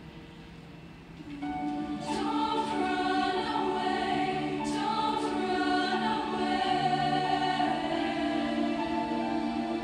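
Show choir singing a slow ballad in long held chords. It comes in softly, swells about a second in, and has a few crisp consonants sung together near two and five seconds.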